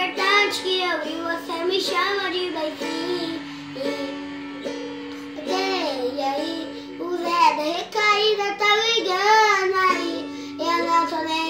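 A young boy singing, his voice sliding and wavering on long held notes, over steady held chords and the strumming of a small acoustic guitar.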